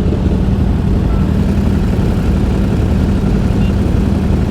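Motorcycle engine running at a steady cruise, heard from the rider's position as an even low drone with no revving.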